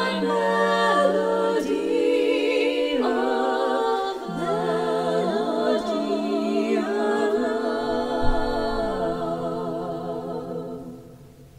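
Women's four-part barbershop quartet (tenor, lead, baritone, bass) singing a cappella in close harmony, moving through a few chords and then holding a long final chord with vibrato that fades away near the end.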